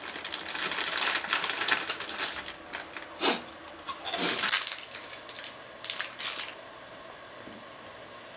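Plastic snack packet crinkling and rustling as it is handled, dense crackling for the first two or three seconds, then a few louder rustles before it dies away after about six seconds.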